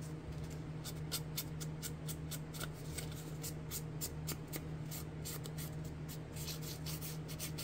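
Quick, repeated swishing strokes of a foam ink blending tool brushed around the edges of a paper tag, about three or four strokes a second, over a steady low hum.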